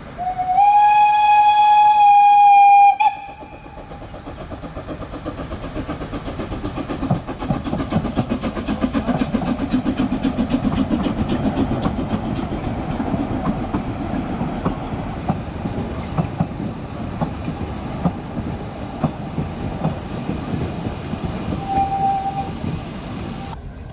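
Narrow-gauge steam locomotive 99 4801-9 gives one whistle blast of about two and a half seconds. It then runs past pulling a carriage, with a rapid rhythmic beat of exhaust and wheels that builds and holds. A brief second toot of the whistle comes near the end.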